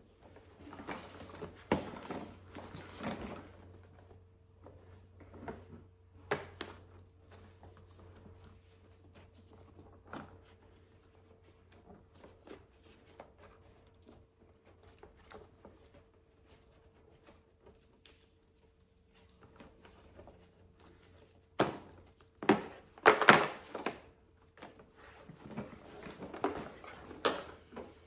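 Handling of an infant car seat: scattered knocks, clicks and rustling from the plastic shell, fabric cover and harness straps being worked, with a louder burst of knocks about three-quarters of the way through.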